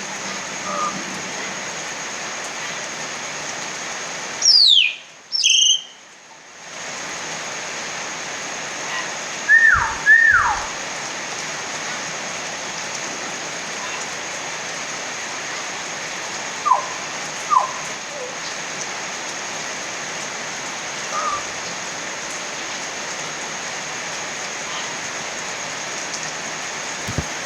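Steady rain, with a hill myna giving loud falling whistled calls in pairs: a sharp high pair about four to five seconds in, another pair around ten seconds, and a lower pair around seventeen seconds.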